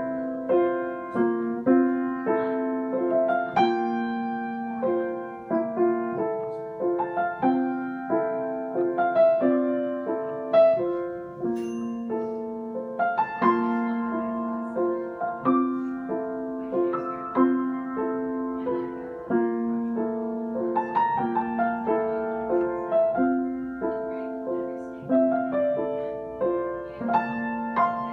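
Piano playing a chord progression and riff in F major, a steady run of struck chords and melody notes left to ring.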